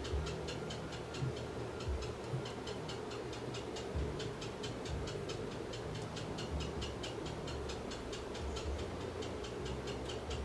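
Rapid, even ticking, about four or five ticks a second, over a steady low hum.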